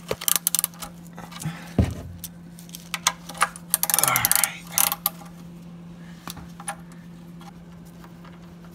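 Scattered metallic clinks and knocks from hands and tools working at the car's underside by the oil pan, busiest in the first half and dying away after about five seconds, over a steady low hum.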